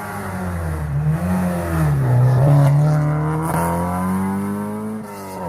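Ford Escort Mk1 rally car's engine under hard acceleration. The pitch dips and recovers in the first couple of seconds, climbs steadily and is loudest about two and a half seconds in, then drops sharply about five seconds in and holds steady.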